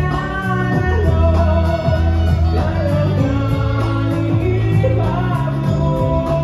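Live band music for a Christian worship song: a man singing over keyboards and saxophone, with held bass notes underneath.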